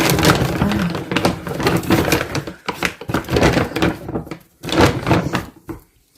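Rustling and knocks as a large bag of dry dog food is handled and moved, in several irregular spells.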